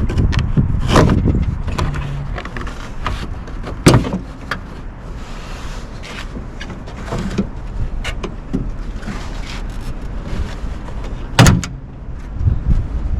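A fabric trim liner being pried and pulled loose from its plastic clips by hand: rustling and handling noise broken by a few sharp clicks and knocks, the loudest about four seconds in and again near the end.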